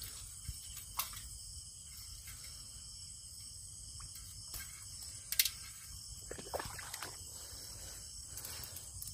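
Insects calling steadily, with a few sharp knocks and rattles as a bamboo shrimp trap is shaken out over a pot, the loudest knock about five seconds in.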